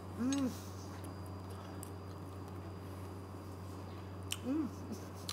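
A person tasting food with a full mouth, giving two short appreciative hums ("mmm"), one just after the start and one near the end, each rising then falling in pitch. Under them runs a steady low hum of kitchen equipment.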